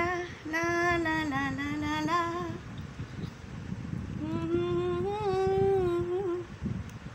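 A woman humming a tune in two phrases of held, gently sliding notes, with a pause of about a second and a half between them.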